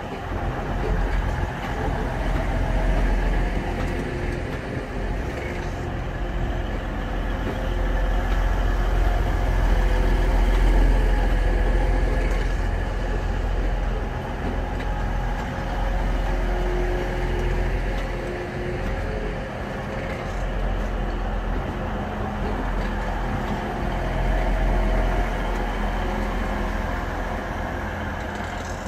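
Underfloor diesel engines of a TransPennine Express multiple-unit train running, a steady low drone with some steady humming tones, swelling a little louder about ten seconds in.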